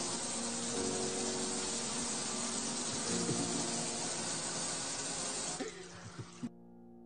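Water spraying steadily against a glass door, a hiss that cuts off suddenly near the end.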